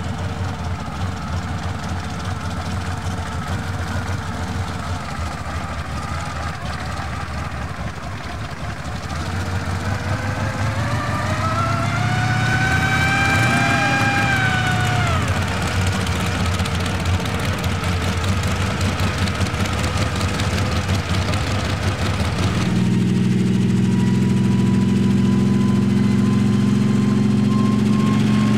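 Kamov Ka-26's two Vedeneyev M14V-26 nine-cylinder radial piston engines running. About halfway through a whine rises and then falls in pitch; near the end the sound changes abruptly to a steadier, lower hum.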